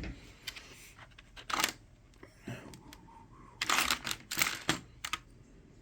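Small plastic Lego pieces clicking and clattering as they are picked out and handled, in short irregular bursts of clicks with pauses between.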